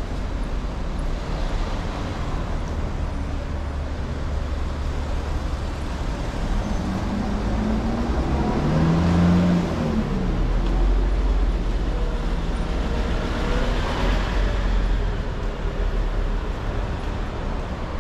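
Street traffic: a steady low rumble of cars, with one vehicle's engine passing close about halfway through and another pass, its pitch bending, a few seconds later.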